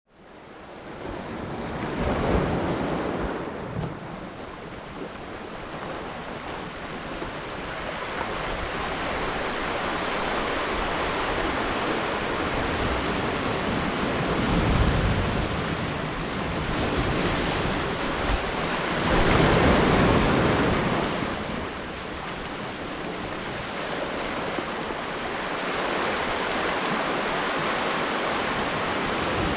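Ocean surf: a continuous rush of waves that swells louder a few times, with wind on the microphone.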